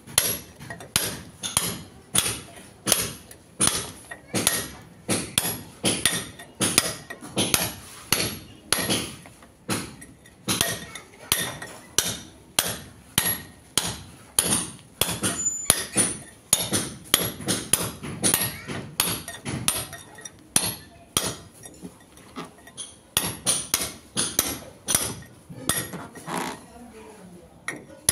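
Hand hammer striking a steel chisel against a brick wall, cutting a groove for electrical wiring: sharp metallic blows at about two a second, with short pauses near the end.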